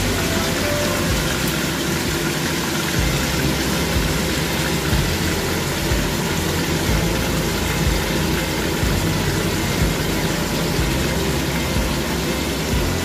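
Whole baby barracuda frying in oil in a pan: a steady sizzle, with a steady low hum underneath.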